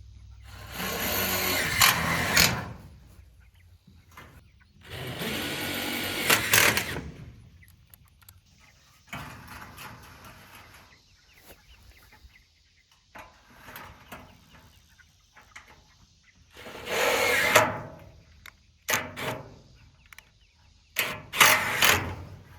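Power drill running in bursts of about two seconds, driving screws: three longer runs, then a few shorter pulls near the end.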